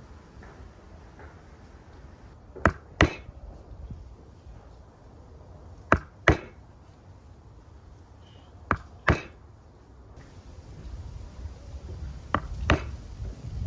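Hand tool striking cypress wood in paired blows: four pairs of sharp wooden knocks, the two blows of each pair about a third of a second apart, a pair every three seconds or so.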